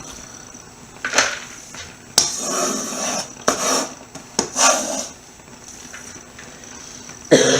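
A sharp hand shredder grating vegetables for coleslaw: several irregular rasping strokes with a few sharp knocks in between.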